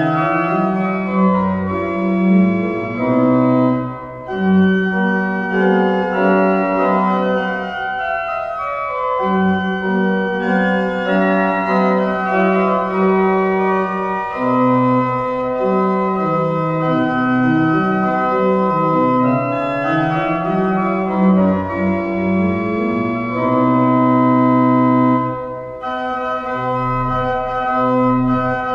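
Pipe organ playing a stately march in full, sustained chords over a moving bass line, with a brief break between phrases about four seconds in and again near the end.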